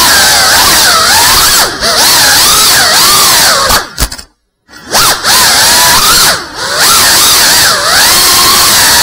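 Tiny whoop FPV drone's motors and propellers whining, the pitch swooping up and down as the throttle changes. The sound dips briefly a few times and cuts out completely for about half a second near the middle.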